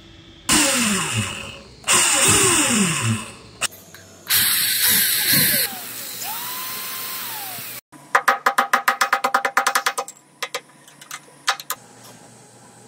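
Electric drill boring a hole into the end of a wooden knife handle, run in three short bursts, its motor pitch falling as it spins down after the first two. Later comes a fast run of clicks, about eight a second, for around two seconds.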